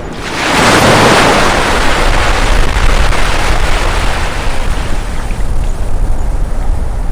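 Sea wave breaking and washing in: a surge of surf builds about half a second in, is loudest for a second or two, then fades over several seconds above a steady low rumble.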